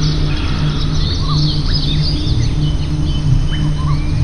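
Small birds chirping, many quick rising notes overlapping one another, over a steady low hum.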